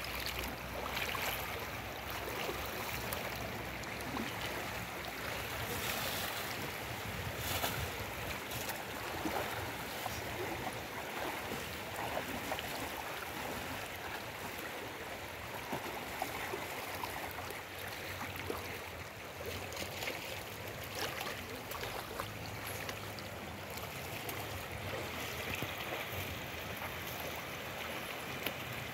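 Shallow, fast-flowing river rushing steadily over a stony bed, with a few short splashes.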